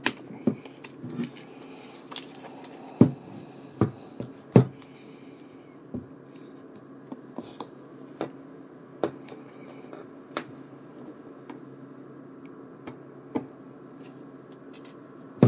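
Handling clicks and knocks on a Panasonic GH5 camera body: the memory card door snapping shut, then the rubber port cover being opened and a USB cable plugged into the camera. A few louder knocks come in the first five seconds, then smaller scattered clicks, over a steady faint hum.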